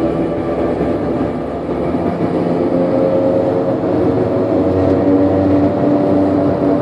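Badly failed wheel bearing (wheel hub) on a moving car or truck, a loud steady drone with a few held tones that sounds like an airplane and grows a little louder about two seconds in. It is an extreme case of a worn-out hub.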